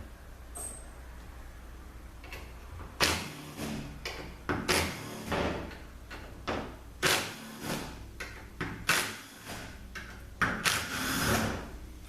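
Irregular clinks, clicks and rattles of hand tools and small steel bolts as the bolts are removed from a ZF 6HP26 automatic transmission valve body, over a steady low hum.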